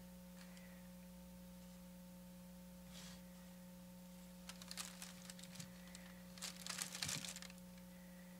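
Faint rustling and crinkling of tissue paper as a pair of shoes is handled on it, in two short spells about four and a half and six and a half seconds in, over a steady electrical hum.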